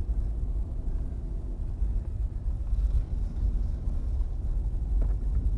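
Steady low rumble of a vehicle towing a camper trailer, its engine and tyre noise heard from inside the cab while driving slowly.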